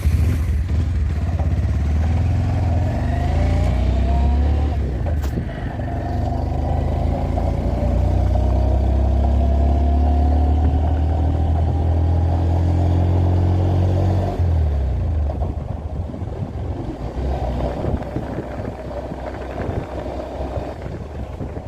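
Motor vehicle engine running loudly and accelerating, its pitch rising over several seconds. About 14 seconds in it drops to a quieter, rougher rumble.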